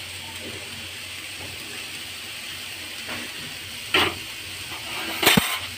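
Freshly added grated bottle gourd sizzling steadily in hot ghee in a metal kadhai, with a brief clatter about four seconds in and a sharp knock near the end.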